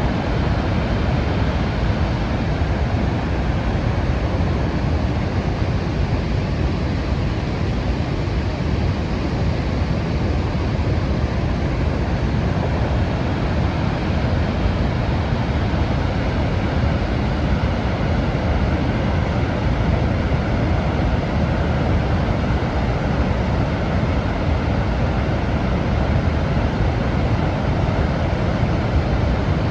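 Niagara Falls: a great volume of water pouring over the falls, heard as a steady, unbroken rush that is heaviest in the low end.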